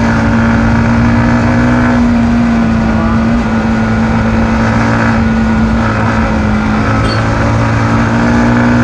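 Yamaha MT-15's 155 cc single-cylinder engine running at a steady, even speed while the motorcycle cruises, heard from on the bike.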